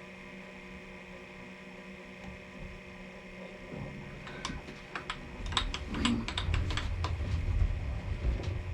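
Machine tool running in forward while a tap cuts threads in a hole: a steady hum at first, then, from about halfway, a run of sharp clicks and a louder low rumble as the tap works in.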